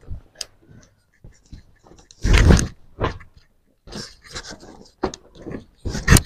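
Clothes being handled and shaken out: cloth rustling in short bursts, with a louder thump about two and a half seconds in and a sharp click near the end.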